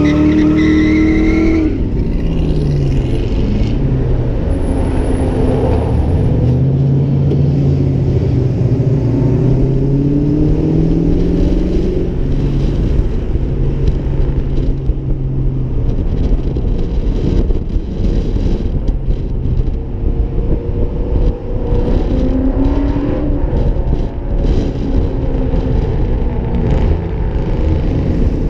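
Ford Mustang engine pulling the car along a street, its pitch climbing and dropping as it accelerates and shifts gears, with a steady stretch about midway. Wind buffets the outside-mounted microphone throughout.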